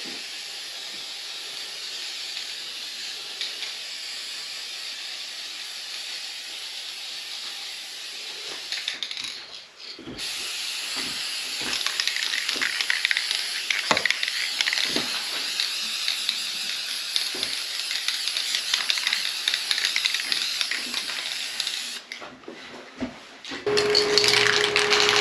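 Aerosol spray can hissing as it sprays a coating onto a boat windshield, first in a softer stretch, then after a brief pause in a louder, longer steady spray that stops about three seconds before the end. A steady tone comes in near the end.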